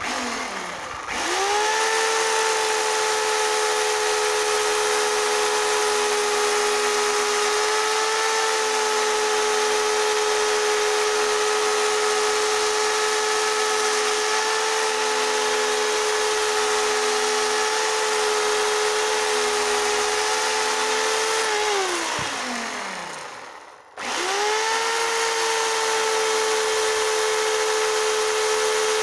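Worx corded electric chainsaw running: the motor spins up with a rising whine, holds a steady high whine while the chain cuts through a firewood log, winds down with a falling whine about 22 seconds in, then starts up again about two seconds later.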